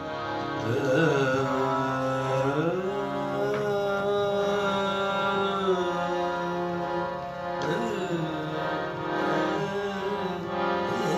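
Harmonium holding sustained chords under a man singing a ghazal in long held notes that slide slowly between pitches.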